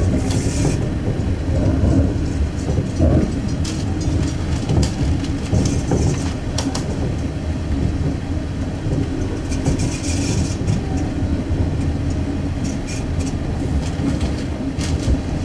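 Suburban diesel railcar running along the line, heard from inside at the front: a steady rumble of engine and wheels, with scattered clicks as the wheels cross rail joints. Two brief patches of hiss come about half a second in and again about ten seconds in.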